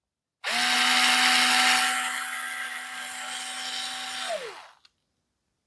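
Small Parkside cordless screwdriver running free with no load: a steady motor whine starting about half a second in, then switched off and winding down with a falling pitch after about four seconds.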